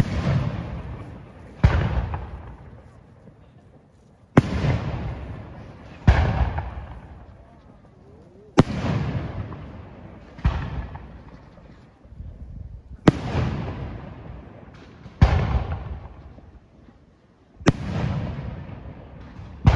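Aerial firework shells bursting one after another, about ten sharp bangs roughly two seconds apart, each followed by a rumbling echo that fades away.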